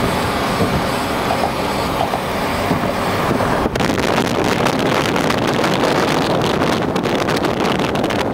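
Loud, steady rush of road and wind noise from a vehicle driving at speed across a bridge. From about a third of the way in, wind buffets the microphone in rapid gusts.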